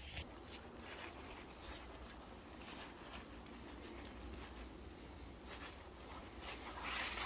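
Light scratchy rustling of paracord and fabric being handled and knotted onto a tarp tie-out, over a steady faint hiss. The rustling is louder and longer near the end.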